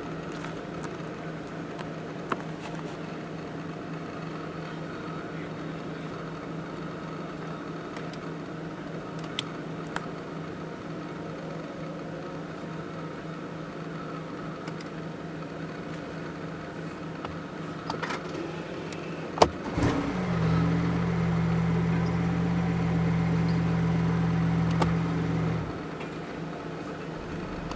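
BMW i8 sports car: a steady low hum with a few sharp clicks, then, about twenty seconds in, a louder, steady low engine note. The engine note holds for about six seconds and then drops away.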